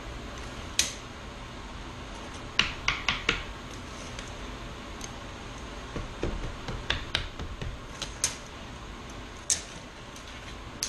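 Scattered sharp clicks and light taps from a tape measure being handled while the pine rim segments are measured, some single and some in quick runs of three or four, over a low steady hum.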